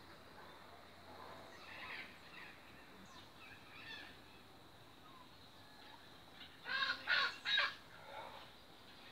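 A bird calling outdoors: three loud calls in quick succession about seven seconds in, with fainter, shorter calls earlier.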